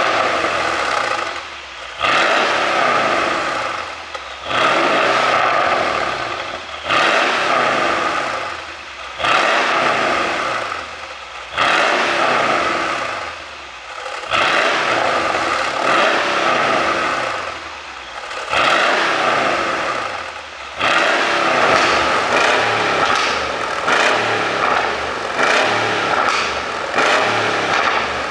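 Mercedes-AMG CLS 63's twin-turbo V8 revved over and over, each blip snapping up and then falling back in pitch, with pops and crackles from the exhaust on the overrun from its ECU pop tune. The blips come faster in the last few seconds.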